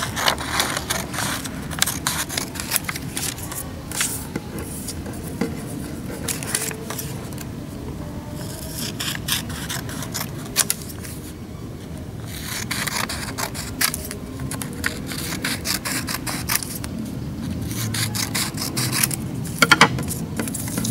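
Scissors cutting through a sheet of paper, a run of short crisp snips with the paper rustling between cuts.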